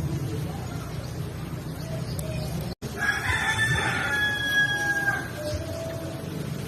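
A rooster crowing once, a single held call of about two seconds that starts about three seconds in, right after a momentary dropout in the sound. A low steady rumble fills the seconds before it.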